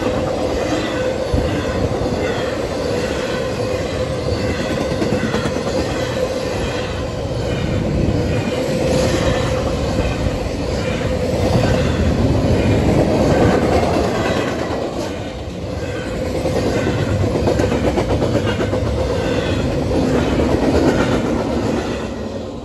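Norfolk Southern intermodal freight train of container and trailer well cars passing at speed over a grade crossing: a loud, steady rumble with a rhythmic clatter of wheels on the rails. The sound fades away near the end as the last car clears the crossing.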